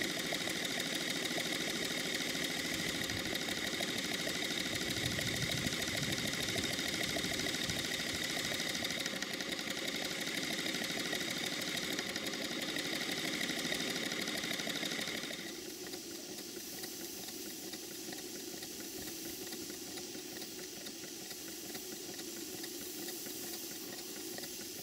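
Stuart 5A single-cylinder vertical model steam engine running on steam, with a rapid, regular train of exhaust beats over a steady hiss. About fifteen seconds in, the sound becomes quieter and duller.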